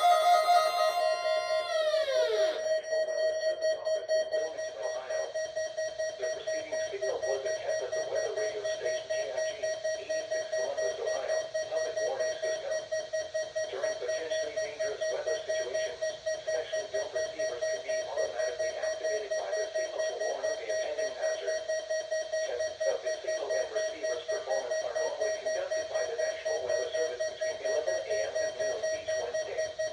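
Weather alert radio's alarm beeping rapidly on one steady pitch. At the start a chord of tones slides down in pitch and gives way to the beeping about two seconds in.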